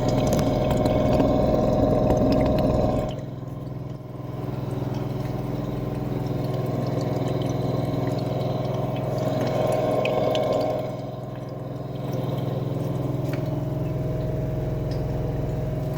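LG 10 kg front-load washing machine running, its motor giving a steady hum with a whining tone: the motor noise the owner reports as a fault. The sound drops away briefly about three seconds in and again about eleven seconds in, then picks back up.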